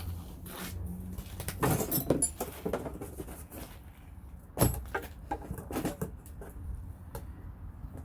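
Scattered clicks, taps and rustles of bolts and metal parts being handled and hand-tightened while assembling a snow pusher, with one sharper knock about four and a half seconds in.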